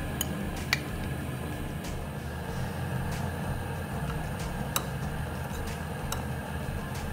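Metal kitchen tongs clinking a few times against the bowls as a chicken strip is dipped in beaten egg and pressed into bread crumbs, the loudest clink about a second in, over a steady low hum.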